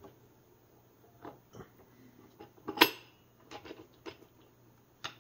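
Scattered metal clinks and taps from a 4L60E transmission case being worked down onto its output shaft, with one louder, sharp clank nearly three seconds in.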